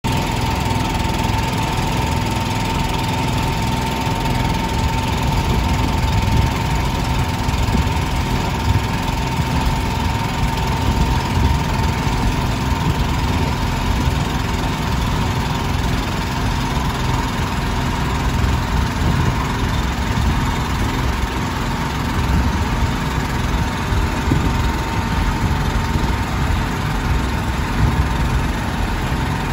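Boat engine running steadily under way, a low rumble with a steady whine above it, over the hiss of rain falling on the river.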